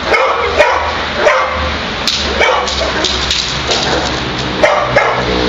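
Dog barking in a series of short, sharp barks spaced unevenly, the loudest about half a second in and again near the end.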